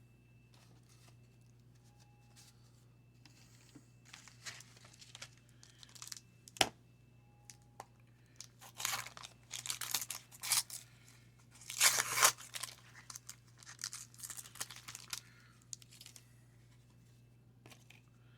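Waxed-paper wrapper of a baseball card wax pack being torn open and crinkled. Irregular scratchy tearing and rustling starts about four seconds in and is loudest around the middle, with one sharp click about six and a half seconds in.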